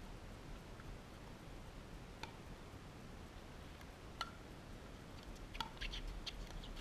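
Faint, sharp clicks and pops from pickleball paddles and a plastic pickleball: single taps about two and four seconds in, then a quick irregular run of them near the end. A low wind rumble lies underneath.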